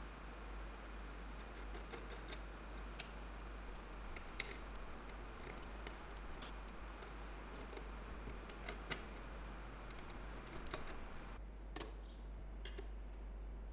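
Faint, scattered small clicks and taps of steel parts being handled: ball bearings and bolts fitted onto a homemade steel jig.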